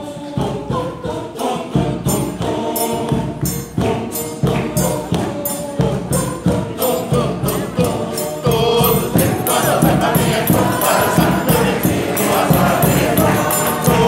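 Mixed choir singing a forró song, accompanied by forró percussion: zabumba bass drum, triangle and pandeiro keeping a steady beat. The singing grows louder and fuller about halfway through.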